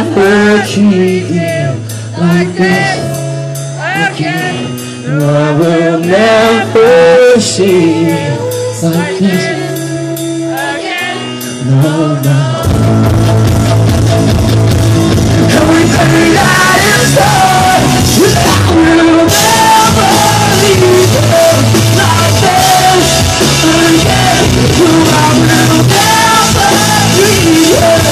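Live rock band playing, with a male voice singing over a lighter backing; about halfway through, the full band comes in and the sound gets fuller and louder, with heavy bass and drums.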